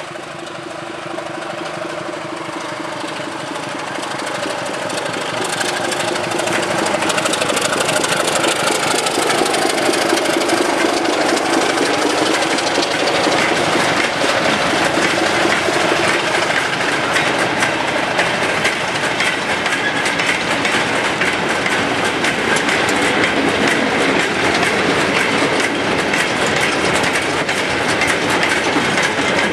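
Sulzer-engined Type 2 diesel locomotive running under power as it approaches and passes, growing louder. Then a long rake of steel mineral wagons clatters past, wheels clicking over the rail joints.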